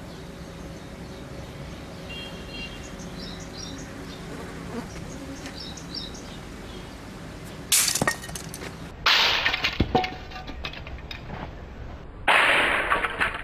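A brick falls onto a hollow plastic toy camera and crushes it, a sudden loud crash and crunch of breaking plastic about twelve seconds in. Two other loud, sudden crunching noises come about eight and nine seconds in, after a long stretch of steady quiet background.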